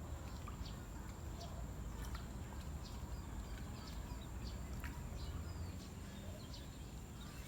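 Outdoor ambience with birds calling in short, scattered chirps over a steady low rumble and a thin, steady high-pitched tone.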